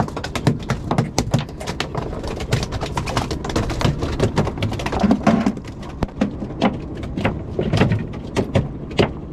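Rapid, irregular sharp clicks and knocks, several a second, of the kind made by fishing gear being handled close to the microphone.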